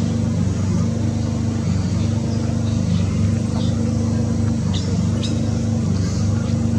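Steady low engine hum, like a vehicle idling, with a few short, faint high chirps about five seconds in.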